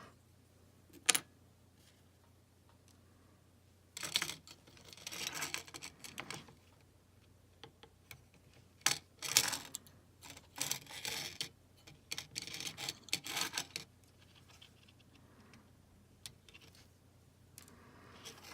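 Bench handling noises while desoldering a circuit board: scattered sharp clicks, one louder about a second in, and short bursts of scraping and rattling in the middle.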